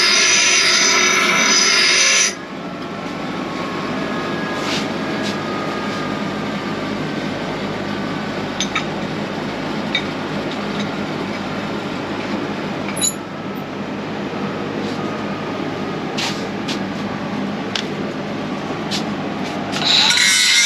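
An angle grinder runs for about two seconds and stops. Then comes a long, steady crackle with scattered sharp pops, the sound of MIG welding on steel frame rail. Near the end a grinder spins up again.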